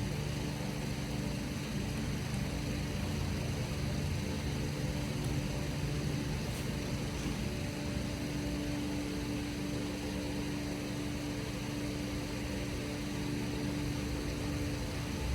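Steady mechanical hum and whir from a running machine such as a fan, with a faint tick or two about midway.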